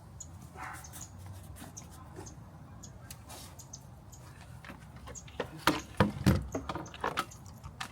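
Handling noise: a scatter of faint clicks, then a burst of sharp clicks and knocks about five to seven seconds in, over a steady low hum.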